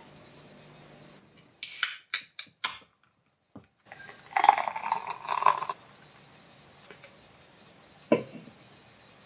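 A drink can of Green Label is cracked open with a hiss about two seconds in, with a few short fizzy bursts after it. Then comes a couple of seconds of it being poured into a glass, fizzing, and a single knock near the end.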